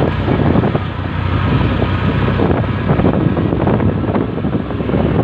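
Motorcycle riding over a rough cobblestone track: the engine runs steadily under a constant clatter of rattles and jolts from the stones, with wind buffeting the microphone.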